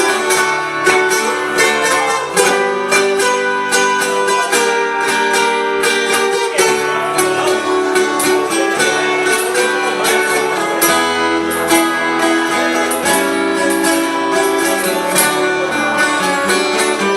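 Instrumental break in a song: acoustic plucked strings, guitar or viola, strummed and picked at a steady pulse, with no singing.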